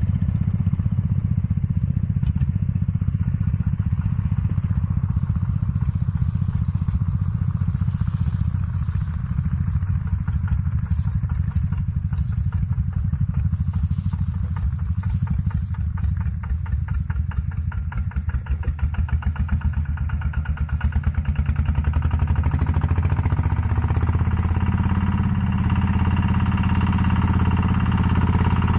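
Engine of farm machinery running steadily, growing louder and fuller about three quarters of the way through.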